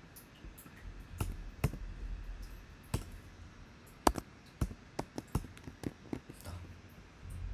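Computer keyboard keys being typed, a run of irregular sharp clicks.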